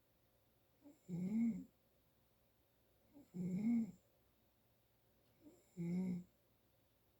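A person snoring three times, about every two and a half seconds. Each snore is a pitched drone that rises and falls, with a short faint sound just before it. The sleeper puts the snoring down to allergies.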